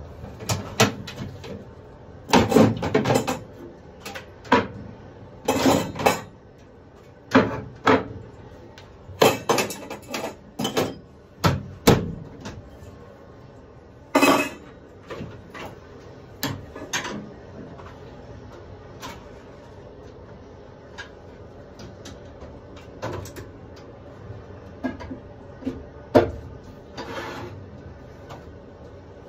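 Irregular knocks, clunks and clatters from hands-on work around an aircraft engine during an oil top-up. They come thick and fast for the first dozen seconds, then thin out, with single loud knocks about fourteen and twenty-six seconds in.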